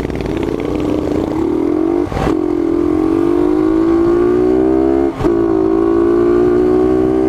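Honda CG 125's single-cylinder four-stroke engine pulling under acceleration, its pitch rising steadily, with two brief breaks for gear changes about two and five seconds in.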